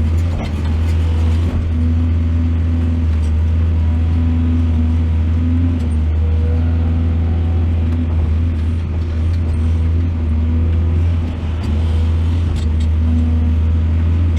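Excavator's diesel engine running steadily at working speed, a constant low drone.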